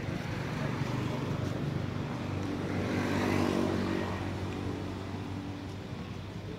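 A motor vehicle's engine running steadily, growing louder to a peak about three and a half seconds in and then fading as it passes by.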